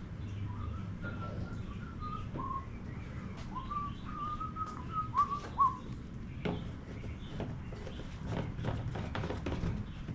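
A person whistling a wavering tune for about five seconds, followed by scattered clicks and knocks of things being handled.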